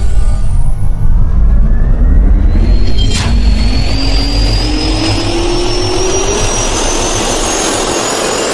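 Jet engine spool-up sound effect: a loud rushing noise with a whine that rises steadily in pitch, a click about three seconds in, and a sudden cut-off at the end.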